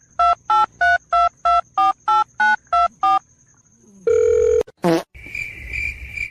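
Touch-tone phone keypad dialing: ten short two-tone key beeps, about three a second. Then a louder beep, a quick swoop in pitch and a steady high tone.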